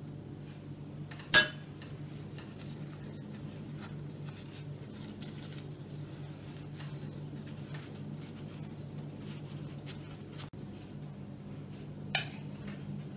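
Cooking utensils knocking against dishes: two sharp clinks, one about a second in and one near the end, with faint small taps between them, over a steady low hum.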